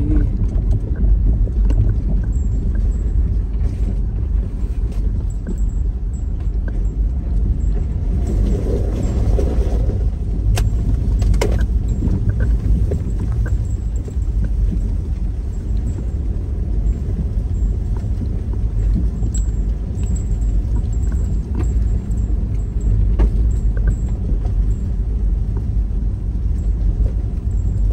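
Car driving over a rough dirt trail, heard from inside the cabin. The engine and tyres make a steady low rumble, with scattered knocks and rattles from the bumps.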